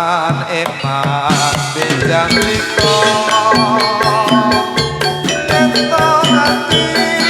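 Javanese gamelan ensemble playing jathilan accompaniment: metallophones and drums strike a steady, fast, repeating pattern, with a wavering held melody at the start.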